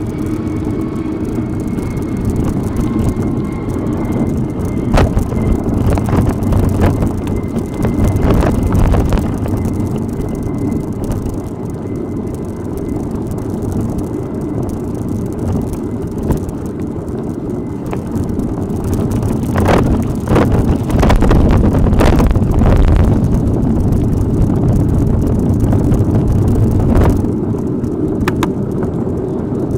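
Off-road bicycle ride: wind on the microphone and a low rumble from tyres on a rough track, with scattered knocks and rattles from the bike, bunched about two-thirds of the way through.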